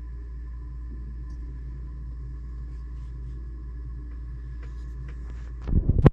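A steady low rumble with faint sustained tones over it. Near the end come a loud cluster of knocks and rustling, like something being handled close to the microphone, and then the rumble cuts off.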